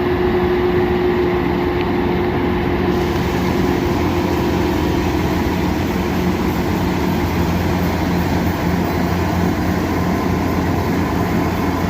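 Kubota DC-120X rice combine harvester running steadily, its diesel engine humming under the rattle of the machinery. A brighter hiss joins about three seconds in.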